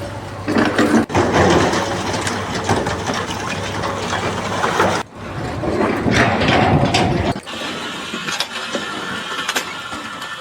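Engine and machinery noise that changes abruptly about a second in, again about five seconds in, and drops back about seven and a half seconds in.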